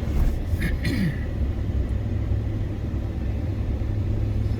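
Steady low engine and road rumble of a pickup truck heard from inside the cab while driving, with a few brief hissy sounds in the first second.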